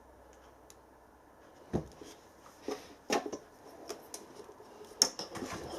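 Diesel heater parts being handled and turned over on a bench: a few sharp knocks and clicks with light rattling between them, after a quiet first second or so.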